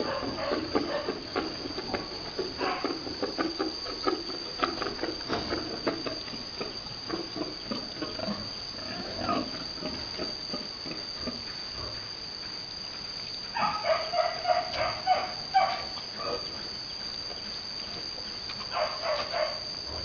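Pigs grunting in a rapid run of short grunts during the first several seconds, as a boar courts and mounts a sow. Louder, higher-pitched squealing calls come about two-thirds of the way in and again briefly near the end.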